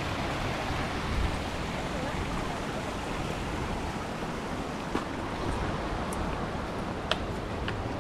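Steady rushing of river water, with a few sharp clicks about five seconds in and near the end.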